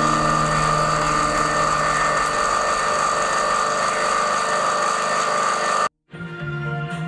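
Electric drill driving a paddle mixer in a bucket of paint, its motor running with a steady whine. It cuts off abruptly near the end and music begins.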